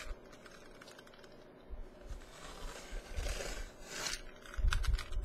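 Box cutter slitting the packing tape on a cardboard box: irregular scraping and tearing of tape and cardboard, with a few short knocks of hands on the box near the end.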